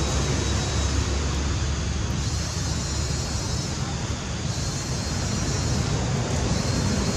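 Steady wind noise on the microphone outdoors: a low, fluctuating rumble with an even hiss over it, and no distinct animal calls.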